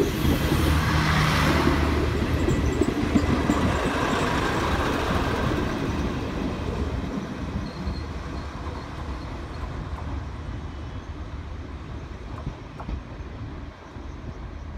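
Renfe Series 592 diesel multiple unit rolling away along the platform track as it enters the station: a low diesel drone and wheel noise that are loud at first and fade steadily as the train recedes.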